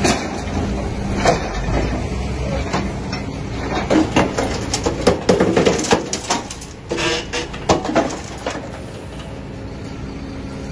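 Hidromek HMK220 excavator's engine running steadily as its VTN CI2000 hydraulic scrap shear bites into and drags through scrap steel and concrete rubble. Sharp metallic clanks and crunches come thickest in the middle few seconds and die down near the end.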